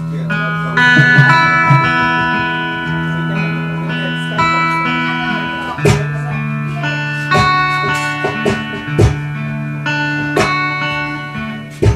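Guitar playing the intro to a love song: plucked chords ring out and change every second or so, with a few sharp hits partway through and near the end.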